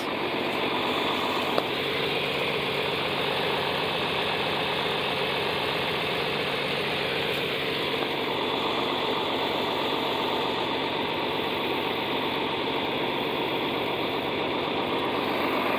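John Deere 4020 tractor's six-cylinder engine idling steadily.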